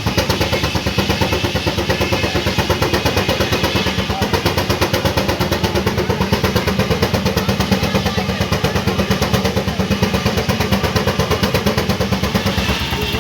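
Steam traction engine running steadily under load, its exhaust beating in a rapid even rhythm of about eight chuffs a second.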